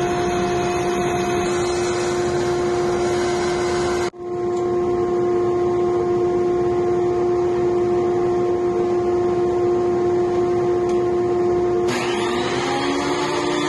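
Steady hum of running woodworking machinery, which drops out for an instant about four seconds in. Near the end a benchtop thickness planer's motor switches on and spins up with a rising whine.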